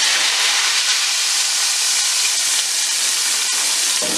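Hot tempering oil with dried red chilies, mustard seeds, cumin and curry leaves poured into a pot of yogurt-and-gram-flour karhi, sizzling with a loud, steady hiss.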